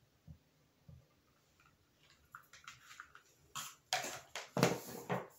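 Handling noises from craft materials: two soft thumps in the first second, then clicks and rustling that grow louder over the last two seconds.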